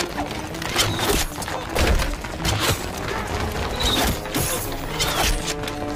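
Film fight soundtrack: a quick, irregular run of sharp hits, clatter and swishes from a bow-and-arrow fight, over background music.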